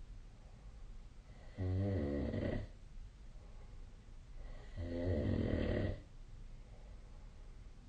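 A sleeping person snoring: two snores about three seconds apart, each lasting about a second, with quieter breathing between them.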